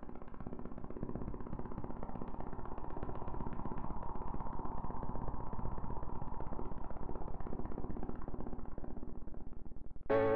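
Helicopter flying past with a rapid, even rotor chop that grows louder over the first few seconds and then holds steady. Just before the end it drops away and piano music comes in.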